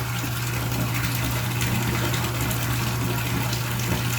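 Steady rushing, water-like noise with a constant low hum underneath.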